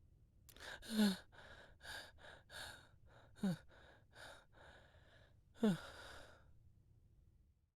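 A person panting heavily, out of breath as if from running: a quick series of short, hard breaths, three of them voiced as falling gasps.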